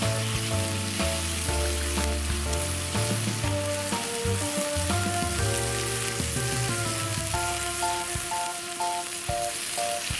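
Food frying with a steady sizzle, under background music that plays a melody of held notes over a bass line.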